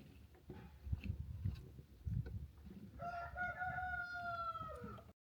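A rooster crows once, about three seconds in: a single held call of about two seconds that drops in pitch at the end. Before it there are irregular soft knocks and rustling, and the sound cuts off abruptly just before the end.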